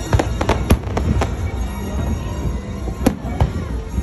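Aerial fireworks shells bursting: a quick run of sharp bangs in the first second or so, then a loud bang and a smaller one about three seconds in.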